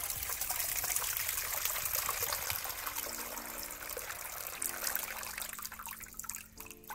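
Dilute sulfuric acid electrolyte pouring from the open cell ports of a tipped car battery and splashing into a plastic bowl. The splashing fades toward the end as the flow thins.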